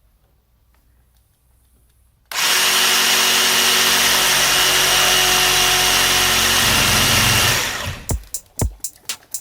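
Electric power saw starting abruptly about two seconds in, running steadily at full speed for about five seconds while cutting plastic pipe, then winding down. Sharp regular beats of background music follow near the end.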